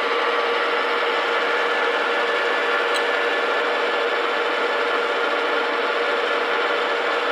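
Metal lathe running steadily, its chuck spinning a steel rod while a threading die in its die stock rides on the rod. A constant hum with a steady whine.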